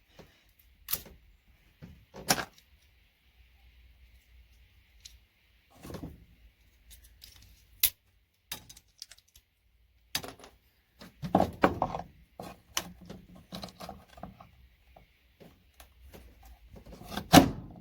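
Scattered clicks, snaps and light rattles of small plastic and metal parts as RJ45 ethernet connectors are broken apart by hand to free their gold-plated pins. The clicks bunch together about two thirds of the way through, and the loudest snap comes near the end.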